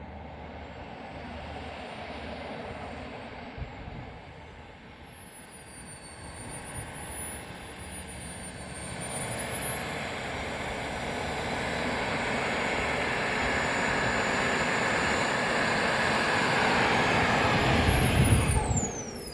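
KingTech model jet turbine in an RC Rafale, a high-pitched whine with a rush of jet noise that grows steadily louder as the pitch climbs and holds, then drops steeply in pitch and loudness near the end.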